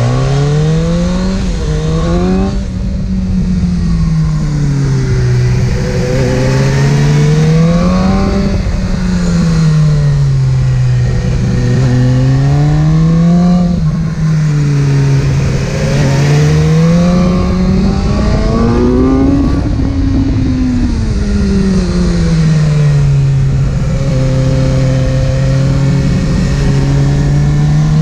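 Inline-four sport motorcycle engine under way, its pitch rising and falling over and over as the throttle is opened and rolled off, over a steady rumble of road noise.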